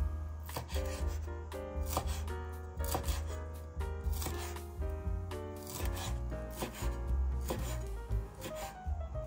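Chef's knife chopping fresh dill on a wooden cutting board: a run of quick, uneven blade strikes against the wood, over background music.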